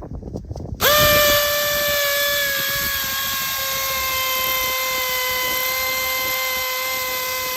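Makita cordless hammer drill starting up about a second in and drilling into white limestone with a quarter-inch masonry bit under firm pressure. It runs steadily with a high whine that sags slightly in pitch as it bites.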